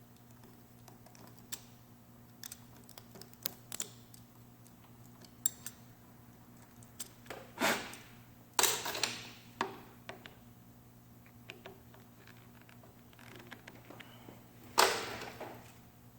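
Scattered clicks and light knocks of small hard objects being handled, with a few louder clatters about halfway through and again near the end, over a steady low hum.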